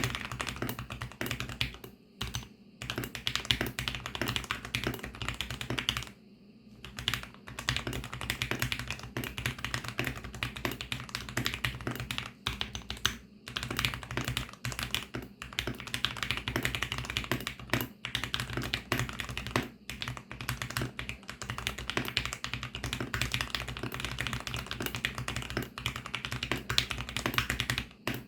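Fast continuous typing on a VARO V68 mechanical keyboard with lubed VARO Panda linear switches, the keys clacking in quick runs, with brief pauses about 2 seconds in, around 6 seconds in and near the middle.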